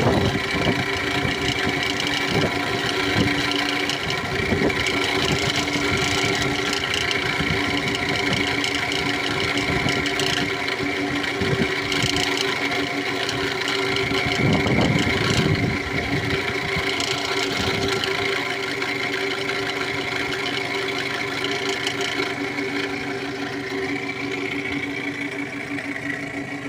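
2008 Toyota Camry engine idling with a steady whine on top, coming from the alternator pulley, which the owner takes to be bad.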